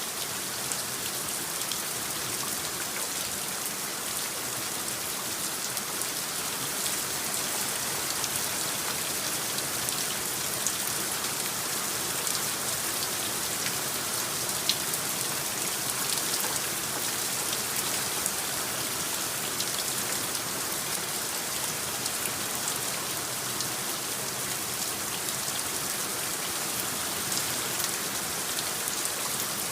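Steady rain: an even hiss of falling rain with many small, sharper drop ticks scattered through it.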